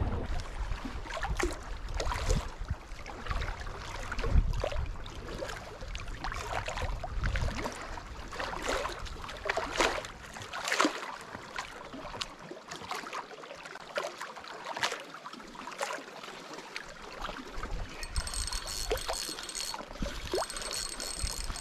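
Water lapping and trickling against a small boat's hull, with scattered light knocks and clicks and a low rumble that dies away about halfway through.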